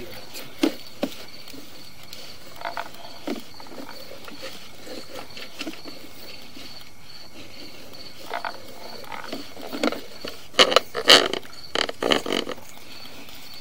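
Night insects, crickets, chirping steadily in the background, with a few sharp knocks about a second in and a loud burst of clattering knocks near the end.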